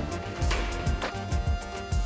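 Background music with a steady beat: kick drum, snare and plucked guitar notes.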